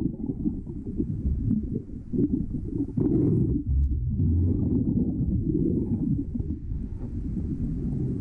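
Muffled underwater rumbling and water movement, picked up by a camera below the surface as a diver works along a timber boat's hull scraping off shell growth. Almost all of the sound is low and dull, with an uneven, fluttering level.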